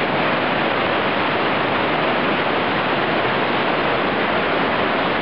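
Ocean surf washing in around the concrete pilings, a steady, even rush of water noise.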